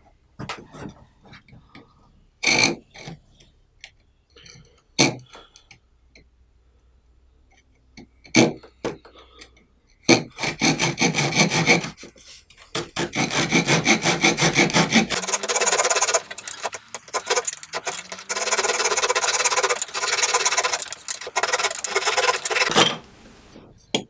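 Small saw blade of a Leatherman Rebar multitool cutting a pine board by hand. It starts with scattered short, halting strokes while the thin blade struggles to start the cut, then runs into fast, continuous back-and-forth sawing for about thirteen seconds, stopping shortly before the end.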